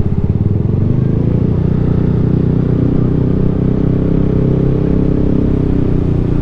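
Yamaha maxi-scooter engine running at low speed with a steady drone, its pulsing beat in the first second smoothing out after that.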